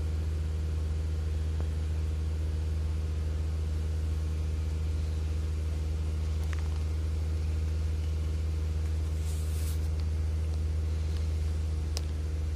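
Hyundai Creta's 1.6-litre petrol engine idling steadily with a constant low hum, during calibration of its newly fitted sequential CNG kit.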